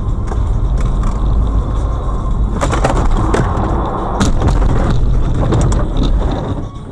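Car ploughing through deep roadside snow: a loud heavy rumble with dense crunching and cracking as snow and ice hit the car's body, easing off near the end.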